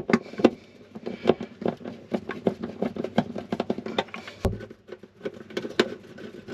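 Hand screwdriver driving small wood screws through a plastic socket back box into a wooden cupboard panel: a quick, irregular run of clicks and creaks as the screw turns, with one dull thump about four and a half seconds in.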